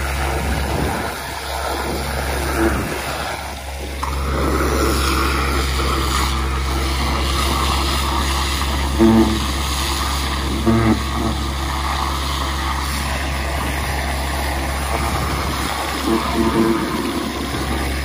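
Truck-mounted vacuum excavator running steadily: the engine and vacuum drone with a low hum and a rushing noise as the hole is blasted with a pressure-washer wand and sucked out. A few short louder sounds come about halfway through and again near the end.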